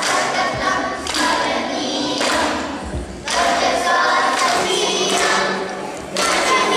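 Group of children singing together as a choir, in phrases with short breaks between them. There is a low thump about three seconds in.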